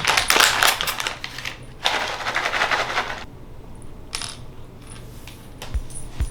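Dry cat treats rattling as a treat container is shaken in several bursts, a dense rattle at first, then shorter shakes and a few scattered clicks.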